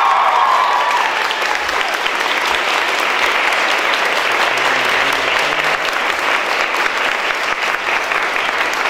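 A crowd applauding steadily, with a high voice shouting over the clapping in the first second.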